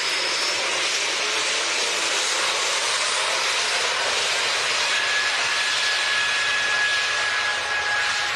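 Embraer E190-E2 jet airliner's Pratt & Whitney geared turbofan engines running: a steady rushing jet noise, with a thin high whine coming in about halfway through.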